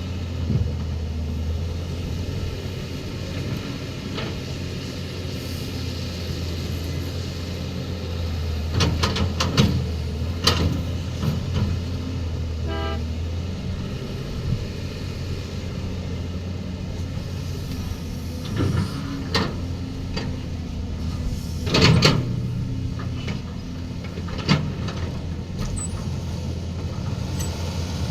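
A heavy machine's diesel engine running with a steady low drone. Sharp metallic clanks and knocks come in clusters, the loudest about 22 s in, and a short string of rapid beeps sounds near the middle.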